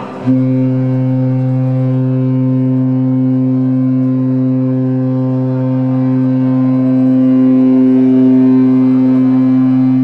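Star Princess cruise ship's horn sounding one long, steady, low blast that starts about a third of a second in and holds for nearly ten seconds.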